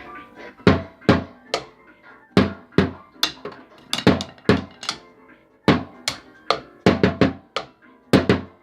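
A run of sharp percussive hits at an uneven pace, each with a low thud and a short ring, about two a second.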